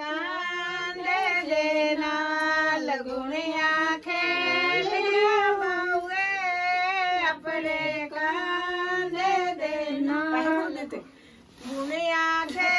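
A woman's voice singing a Pahadi folk song without instruments, in long held notes that waver in pitch, with a short break near the end.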